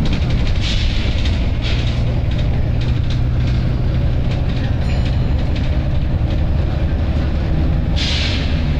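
Volvo B9TL double-decker bus's diesel engine idling with a steady low drone, with short hisses of compressed air released about a second in and near two seconds, and a louder air hiss near the end.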